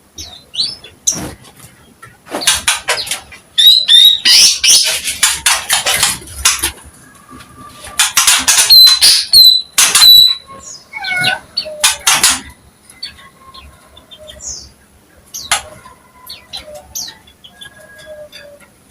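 A cucak ijo (green leafbird) singing hard: long runs of rapid chattering notes mixed with clear whistles and sliding notes, in two loud bursts, with scattered softer calls in between.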